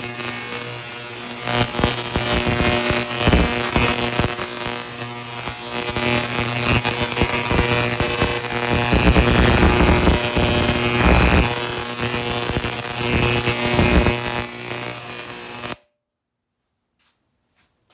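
Ultrasonic cleaner running with a loud, harsh buzzing hum of steady tones; it cuts off abruptly near the end.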